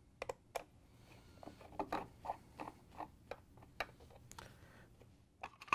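Phillips screwdriver backing out the screw that holds a refrigerator's plastic upper hinge cover: a run of light, irregular clicks as the screw is turned, with a louder click near the end.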